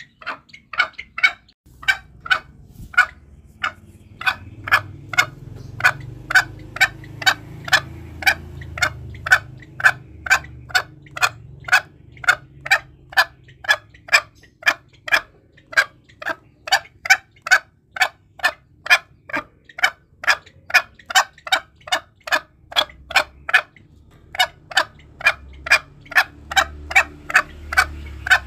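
Green junglefowl making a long, steady series of short, sharp clucking calls, about two to three a second, used as a lure call to draw wild junglefowl. A faint low hum runs underneath.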